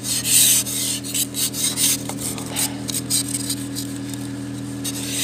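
Frost being scraped off a car windshield in repeated rasping strokes, heaviest in the first second, then lighter, scattered scrapes.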